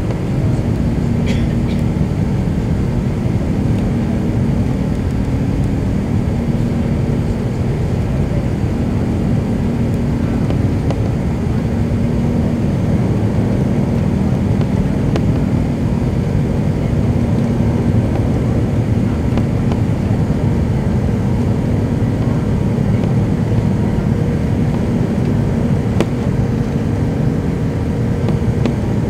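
Airbus A380's Rolls-Royce Trent 900 turbofans at climb power, heard inside the cabin over the wing: a steady, loud engine noise with a low hum running through it.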